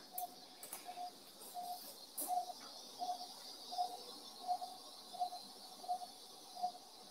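Anaesthetic patient monitor beeping its pulse tone: one short, steady mid-pitched beep about every 0.7 seconds, ten in all, keeping time with the anaesthetised dog's heartbeat. A few faint metallic clicks from surgical instruments in the first couple of seconds.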